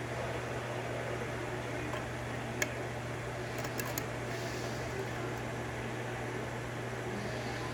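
Small sharp clicks from a lock pick working the pins of a five-pin rim cylinder: one about two and a half seconds in, then a few more close together around four seconds. Under them runs a steady low hum.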